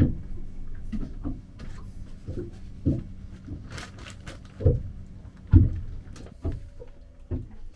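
Handling noise on a small kitchen counter: irregular knocks and bumps, with brief rustling of a plastic zip bag and paper towel, over a faint steady hum.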